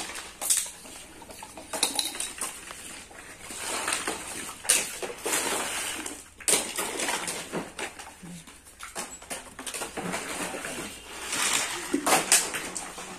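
Pieces of black hard plastic scrap clacking and clattering as they are hand-sorted and tossed onto piles: irregular knocks of plastic on plastic.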